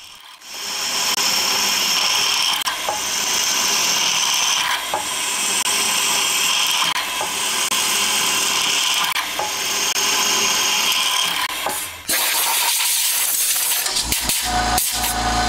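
Twist drill in a machine spindle boring lightening holes through a steel cam-gear blank: a steady high cutting hiss that comes in stretches of about two seconds as the drill feeds. The sound turns coarser near the end.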